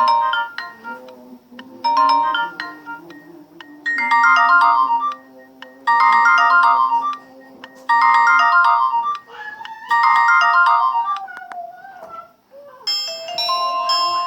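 Nokia 105 (2013) polyphonic ringtone: a short melody repeated about every two seconds and growing fuller with each pass. It stops about twelve seconds in, and a different, bell-like ringtone begins.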